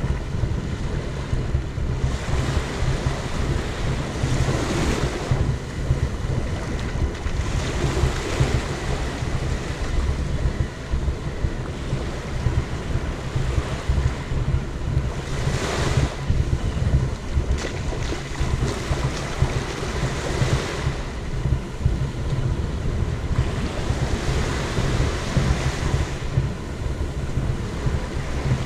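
Waves washing onto a beach, the surf swelling and fading every few seconds, over a steady low rumble of wind buffeting the microphone.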